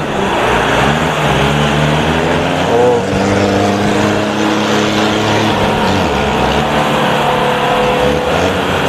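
Engines of two Toyota Fortuner SUVs running hard through a muddy paddy field, the revs rising and falling, with a clear change in pitch about three seconds in.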